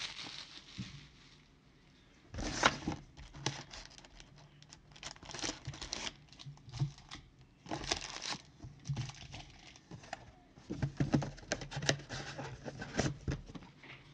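Plastic wrapping on a trading-card box and its packs crinkling and tearing as they are opened, in scattered bursts with a few sharp snaps.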